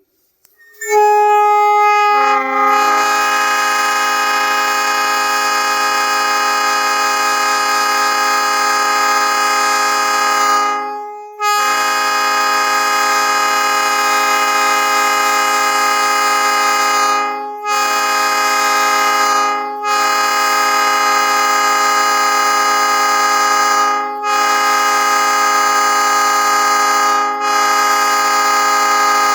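Nathan P3 three-chime air horn blowing. It opens with one note sounding alone for about a second and a half before the full three-note chord comes in, which is the odd start. It then holds the chord in long blasts with several brief breaks.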